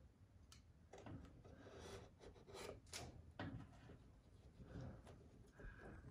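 Faint rustling and scraping strokes of wallpaper mural paper being pressed and worked by hand at the ceiling edge, heard mostly in the first half.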